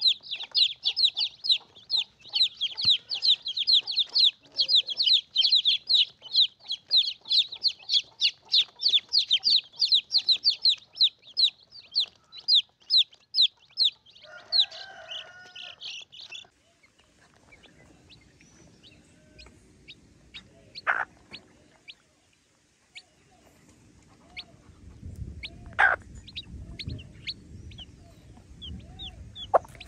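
Chicks peeping: a dense chorus of rapid, high-pitched peeps for the first dozen seconds. After that come sparse scattered peeps over a low rumble, with a couple of sharp clicks.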